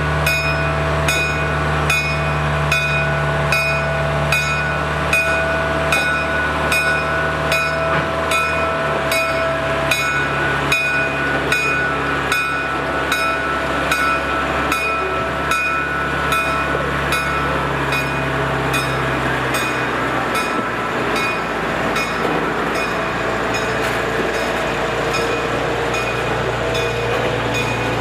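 A Trackmobile railcar mover's engine running as it hauls covered hopper cars past, with the cars' wheels rolling on the rails. Its engine note steps down as it goes by. A regular ringing tick, about twice a second, runs alongside and fades out later on.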